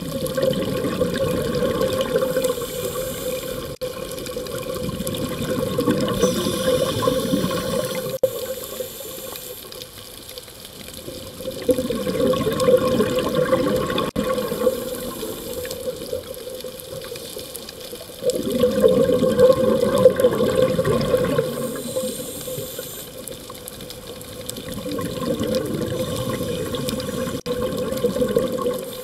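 Scuba diver's exhaled bubbles rushing from the regulator in five surges, about one every six seconds, heard underwater over a steady hum.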